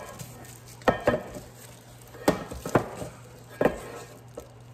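Stainless steel stand-mixer bowl knocking and clanking as it is twisted off the mixer base and handled: about five sharp metallic knocks, each ringing briefly, over a low steady hum.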